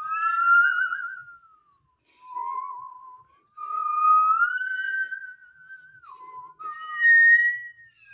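Bowed musical saw: one wavering tone gliding up and down between notes, in a few phrases with short breaks.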